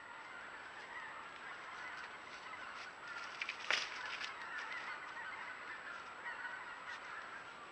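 A large flock of geese honking continuously, a dense chatter of many overlapping calls, from waterfowl feeding in a cornfield. A single sharp snap comes about three and a half seconds in.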